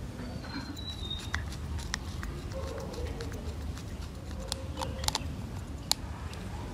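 Scattered small clicks and taps of a screwdriver and small plastic and metal camera parts being handled on a work surface, over a steady low hum. The clicks come closer together in the second half.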